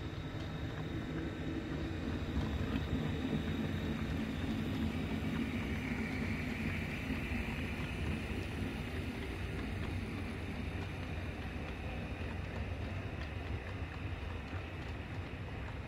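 HO scale model freight train rolling past close by: steady running noise of the Walthers F-unit locomotives and the freight cars' wheels on the track, a little louder a few seconds in.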